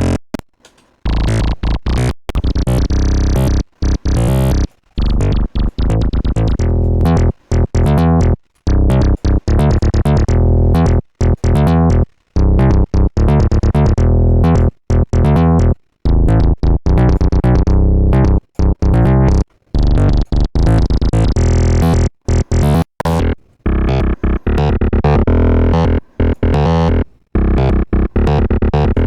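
Synthesizer built on phase-modulated formant oscillators playing noisy, spitty, pounding tones: a long run of short, loud notes that start and stop abruptly with brief silences between them, heaviest in the low end.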